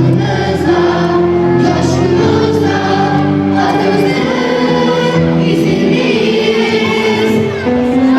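A school choir singing a song together.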